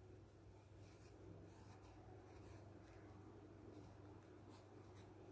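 Faint scratching of a pencil drawing on paper in several short strokes, over a low steady hum.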